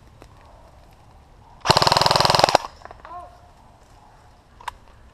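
Airsoft rifle firing a single full-auto burst of just under a second, a fast, even rattle of shots. A single sharp click follows near the end.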